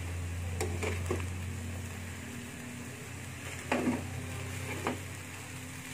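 Bitter melon and egg frying gently in a nonstick pan while a spatula stirs through it, with a few short scrapes about half a second and a second in, then near four and five seconds.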